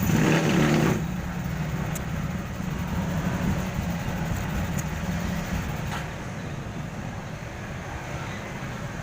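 Steady low rumble of road traffic, loudest in the first second and then even.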